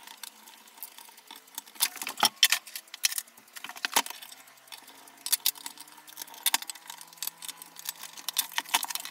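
Small metal clicks and taps of hand tools and small parts against the metal casing of a PC power supply being worked on by hand, irregular and sharpest about two seconds in and again at four seconds.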